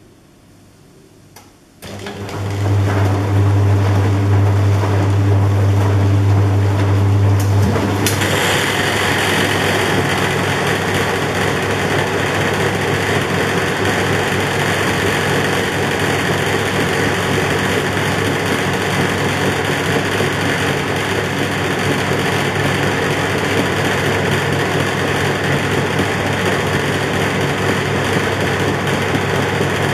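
Philips SlimStar washing machine's motor starting about two seconds in and turning the drum by its belt with a steady low hum, then speeding up at about eight seconds into a steady, louder high-speed spin whir.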